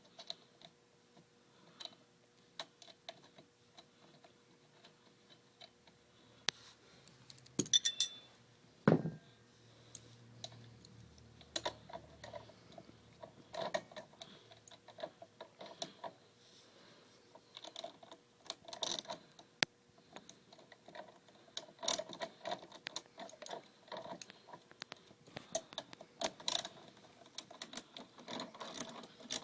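Scattered metallic clicks and taps of hand tools working the scooter's front axle bolt as it is threaded in and tightened. The clicking comes in short irregular runs, thicker in the second half.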